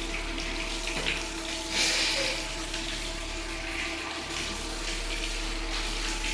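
Salt water splashing out in a steady stream as it is brought back up during kunjal kriya, the yogic cleansing by self-induced vomiting, with a louder gush about two seconds in.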